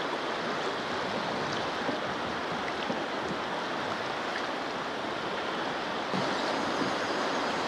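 Steady rushing of a fast, high-flowing river around a drift boat.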